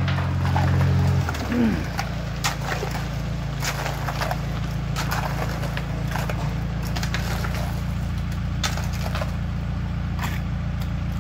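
Engine of a self-loading concrete mixer running steadily. Its note drops and settles lower about a second in, then holds even.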